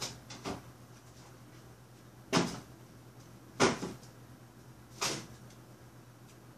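Kitchen clatter: a couple of faint knocks near the start, then three sharper knocks about a second and a half apart, from kitchen doors and lids being handled and shut.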